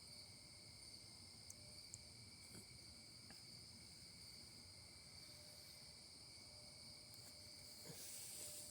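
Near silence except for a faint, steady, high-pitched chorus of crickets, with a few faint ticks.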